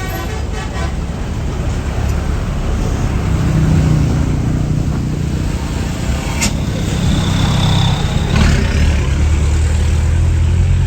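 Large tour bus's diesel engine running close by, growing louder over the first few seconds and then holding steady, with one sharp click about six and a half seconds in.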